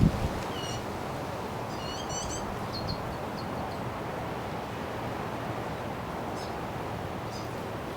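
Small birds chirping in short, high calls: one about half a second in, a quick flurry around two seconds and a few more scattered later, over steady wind noise.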